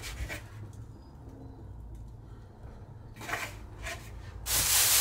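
Plastic wrap rustling as it is handled and pulled off a plastic vent-fan trim ring: a few short rustles about three seconds in, then loud continuous crinkling from about four and a half seconds, over a low steady hum.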